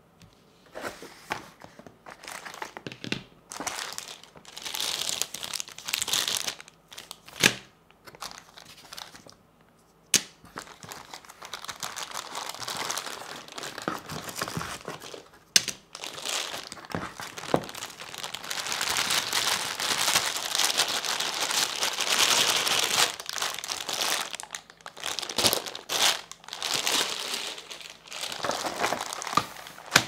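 Clear plastic packaging bags crinkling and rustling in stretches as keyboard accessories are handled and laid out, with a few sharp knocks in between.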